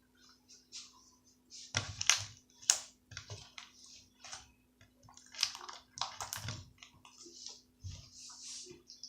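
Slime being squeezed and worked by hand: an irregular run of sticky clicks and squishing crackles, loudest about two and six seconds in, over a steady low hum.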